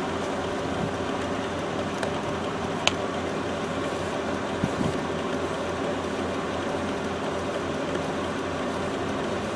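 Steady low mechanical hum, with one sharp click about three seconds in.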